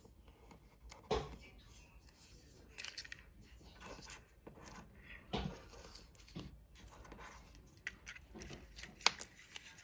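Hands handling sticker sheets and a small plastic case: light paper rustling with scattered plastic clicks and taps, a few sharper ones about a second in, midway and near the end.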